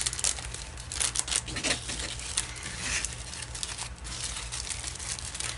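Thin plastic zip-lock bags of diamond-painting drills crinkling and rustling in irregular crackles as they are handled and folded together.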